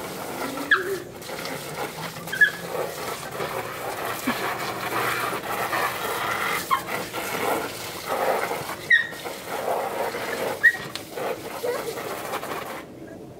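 A seven-month-old Shetland sheepdog puppy gives about five short, sharp yips while playing in water. A garden hose spray nozzle hisses steadily under the yips and cuts off near the end.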